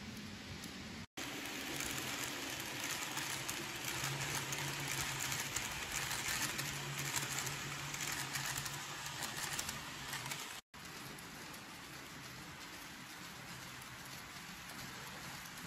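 Model trains running on the layout's track: a steady rushing, pattering rolling noise, louder through the middle stretch with a faint low hum beneath it. The sound drops out for an instant twice, about a second in and near eleven seconds.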